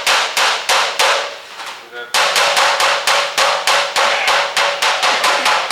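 Body hammer tapping a car hood's sheet steel against a dolly in a fast run of strikes, about four a second, each with a short metallic ring. The blows are knocking down high spots in a dent. They ease off briefly in the first half, then keep going steadily.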